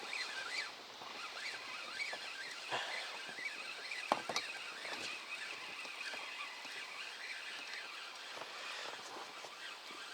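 Quiet open-air sound aboard a small boat on the water, with a few sharp knocks about three and four seconds in.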